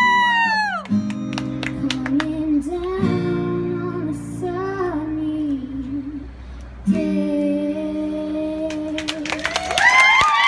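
A young girl singing with her own strummed acoustic guitar, holding long wavering notes. Near the end the audience starts clapping.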